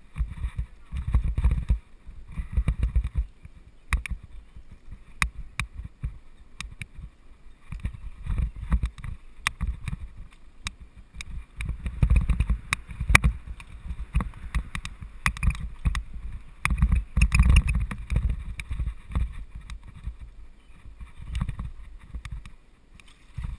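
Mountain bike riding over a bumpy dirt singletrack: an uneven low rumble of wind and jolts on the camera microphone that swells and fades, with scattered sharp clicks and rattles from the bike.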